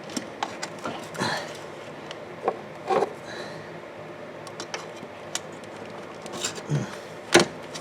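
Scattered clicks and light knocks of hands and plastic as an electrical wiring connector is worked loose, with the sharpest knock near the end.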